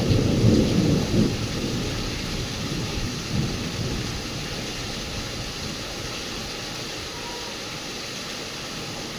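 Thunder rumbling loudly in the first second or so and dying away, with a smaller rumble about three seconds in, over steady rain.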